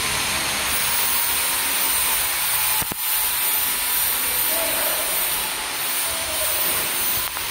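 Flow-wrap packaging machinery running with a steady hissing whir, with a sharp click about three seconds in and another near the end.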